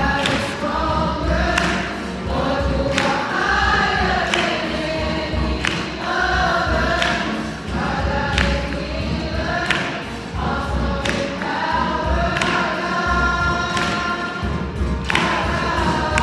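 Choir singing gospel music with instrumental backing and a steady percussive beat.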